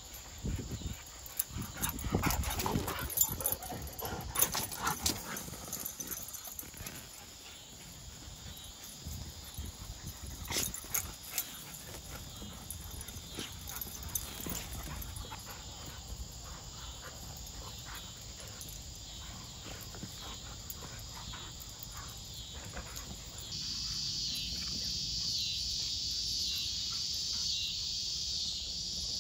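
A bullmastiff and a pit bull mix play-wrestling and chasing on grass: scuffling, thumps and dog noises, busiest in the first dozen seconds. About two-thirds of the way through, a steady high insect chorus comes in.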